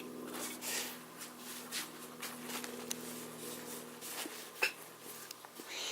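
Faint handling noises from working on the sewing machine: soft rubs and a few light clicks, over a low steady hum that fades out about halfway through.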